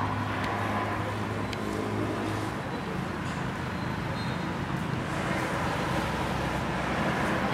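Road traffic: a motor vehicle engine with a low steady hum, then a changing rumble, over steady road noise.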